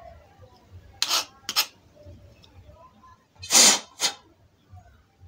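A few separate rasping strokes of a hand file on a brass gas pipe, filing lightly around the cut so that no cutting dust gets inside. The longest and loudest stroke comes about three and a half seconds in.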